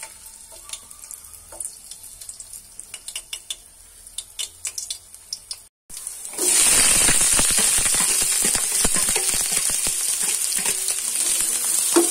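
Chopped garlic crackling softly in hot mustard oil in a steel pan. About six seconds in, sliced onions go into the oil and set off a loud, steady sizzle with constant crackling.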